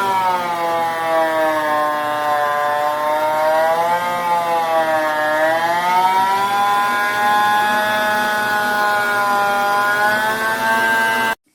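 Hoover bagless backpack vacuum cleaner's motor running with a steady whine that dips lower and rises again in pitch a few times, then cuts off suddenly near the end.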